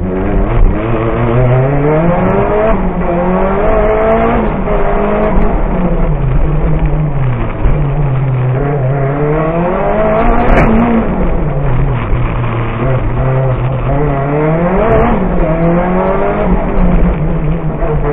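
Lancia Delta Evo rally car's engine heard from inside the cockpit, revving up and dropping back again and again as it accelerates, shifts and slows for tight turns.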